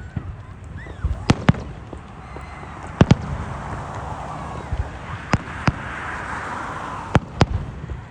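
Fireworks going off: four pairs of sharp bangs, one pair about every two seconds, over a crackling hiss that swells and fades in the middle.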